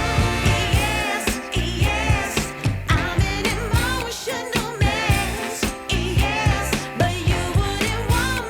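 Background music: a soul or pop song with a sung vocal over a steady beat.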